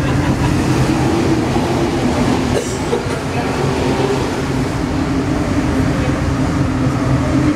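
Alstom NS-16 metro train running at speed, heard from inside the cab: a steady rumble of wheels on rail under a constant hum.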